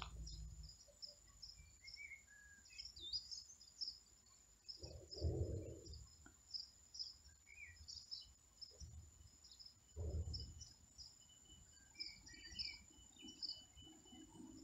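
Small birds chirping and twittering, quiet, in short scattered calls throughout. There are two brief low rumbles, about five and ten seconds in.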